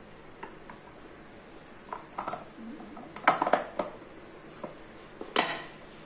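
Hard plastic parts of a dish-soap dispenser clicking and knocking as its pump-top caddy is handled and pressed onto the liquid reservoir. There are a few light clicks, then a quick cluster of knocks about three seconds in and one sharp knock near the end.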